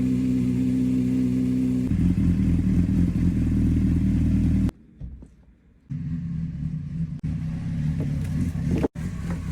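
Honda CBR600RR inline-four motorcycle engine running steadily; its note steps down about two seconds in. The sound cuts out abruptly for about a second a little before the middle, then the engine is running again, with a very short dropout near the end.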